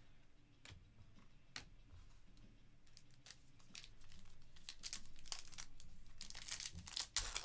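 Foil wrapper of a Panini Prizm trading-card pack crinkling in the hands as it is pulled open: a few scattered crackles at first, then a denser, louder crackling over the last few seconds.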